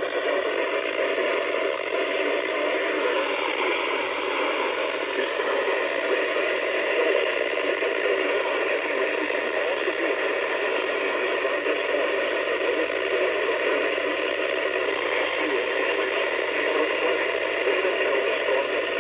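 Steady radio static: an even hiss from a weather-radio receiver on a weak or noisy signal, with no clear words coming through.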